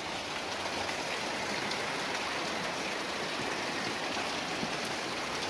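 Steady rush of flowing river water, an even noise without breaks.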